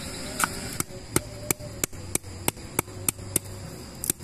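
Knife slicing shallots and chilies: an even run of sharp taps, about three a second, starting about a second in.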